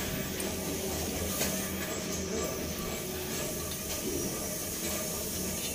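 Steady background hum and hiss, with no distinct knocks or clicks.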